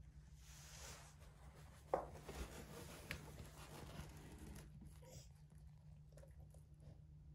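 Faint rustling and scratching, with a sharp tap about two seconds in and a softer one about a second later; then it falls back to quiet room tone.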